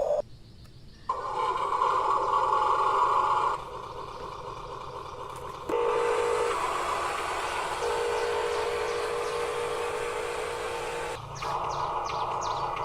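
Small electric motors of a toy RC bulldozer whining steadily, in several stretches that start, stop and change pitch abruptly, with a few quick high ticks near the end.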